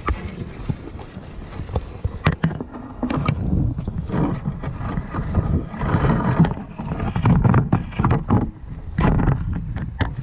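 Footsteps crunching over beach pebbles and rock, with wind buffeting the microphone.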